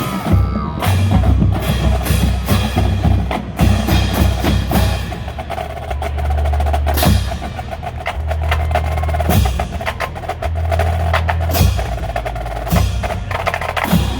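Marching band playing a drum-heavy tune: many sharp snare and drum hits over sustained low bass notes that shift every second or two.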